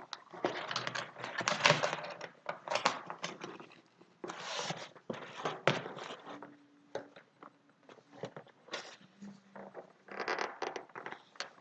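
Toy packaging being torn and pulled apart by hand: irregular bursts of tearing, crinkling and scraping, with quieter gaps between them.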